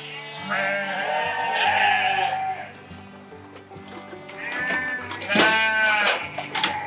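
Sheep bleating, the loudest bleat coming about five seconds in, over background music with sustained low notes.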